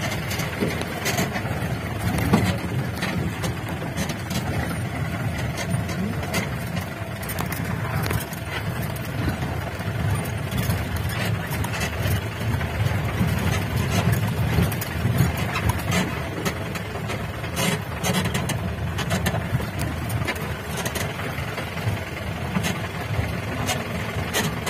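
A jeep's engine running under load as it drives over a rough dirt track, heard from inside the cab, with frequent knocks and rattles as the vehicle jolts over bumps.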